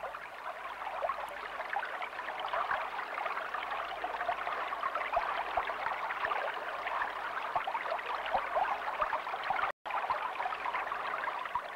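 River water lapping and rippling in a steady wash, with a momentary dropout just before ten seconds in.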